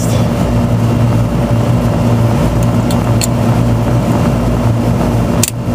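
Steady, loud machinery hum with a strong low electrical buzz, with a few light clicks near the middle.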